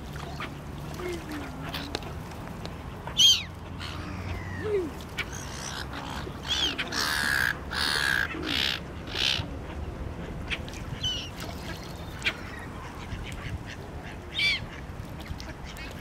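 Gulls and mallard ducks calling on a river: scattered high, harsh calls, the loudest about three seconds in and a busy run of calls around the middle, over a steady low background rumble.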